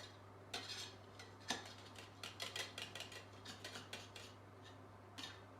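Faint, irregular taps and clicks of kitchen items being handled on a wooden board while flour is spread on it, over a faint steady low hum.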